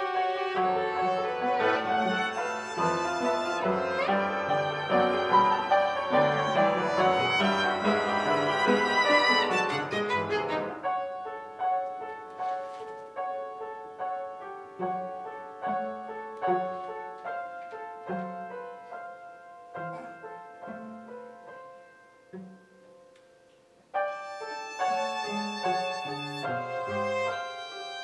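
Live chamber trio of piano, violin and cello playing a silent-film score. A full, loud passage thins after about ten seconds to sparser, softer notes that fade almost to nothing, then the full sound comes back suddenly about four seconds before the end.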